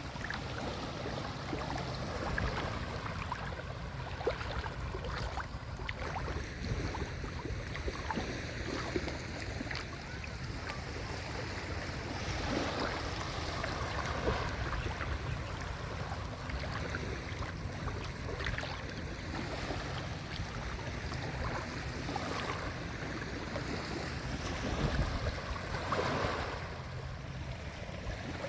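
Small sea waves washing onto a beach, with splashes and wind rumbling on the microphone.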